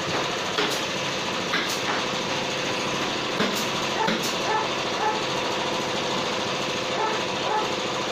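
Spit rotisserie turning a whole turkey over a wood fire: a steady mechanical running sound with short squeaks that recur in places, and a few sharp crackles from the burning wood.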